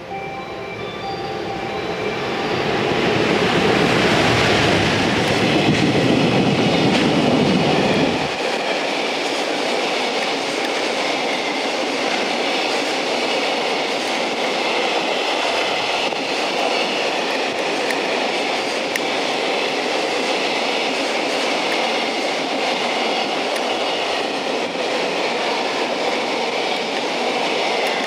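A JR Freight EF210 electric locomotive hauling a container freight train passes through the station, growing louder as it approaches, with a heavy low rumble that drops away sharply about eight seconds in. A long string of container wagons then rolls past with steady clattering wheels.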